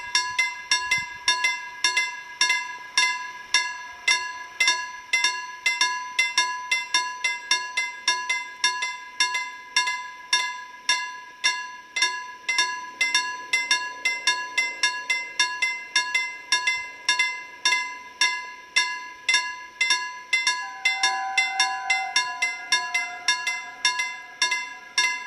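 Railway level crossing warning bell ringing steadily, about two strikes a second, the signal that a train is approaching and the barriers are closing.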